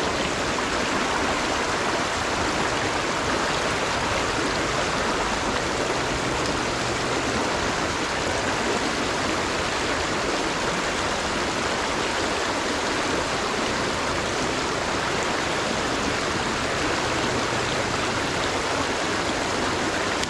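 Flowing river water rushing steadily, an even, unbroken rush with no separate splashes.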